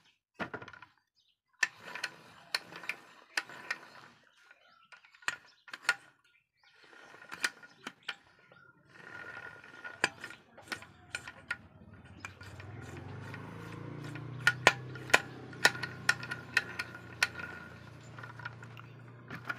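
Irregular metal clicks and clinks from the gears and shafts of a Bajaj auto rickshaw two-stroke engine's gearbox as they are turned and fitted by hand in the open crankcase. From about twelve seconds in, a low steady hum runs underneath.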